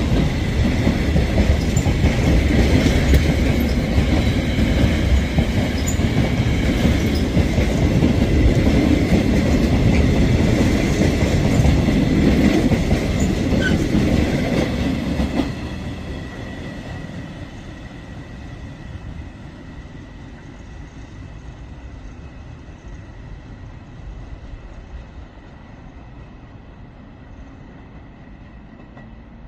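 Freight train of loaded flat wagons passing close by: steady wheel rumble with rattling clicks and a thin steady high squeal from the wheels. About halfway through the last wagon goes by and the sound drops sharply, fading away as the train moves off.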